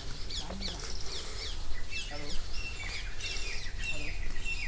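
Several small birds chirping, a rapid run of short falling chirps with some held high notes in the second half, over a low steady rumble.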